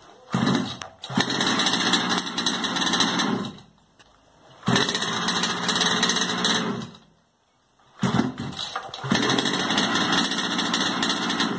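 Small two-stroke petrol engine of a 1/5-scale RC baja buggy being pull-started: three times it catches, runs for about three seconds and cuts out.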